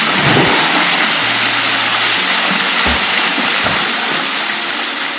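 Small waterfall pouring into a rock pool: a steady rush of water, with a few soft splashes of someone wading through the shallows. Soft background music with low held notes runs underneath, and the sound fades down near the end.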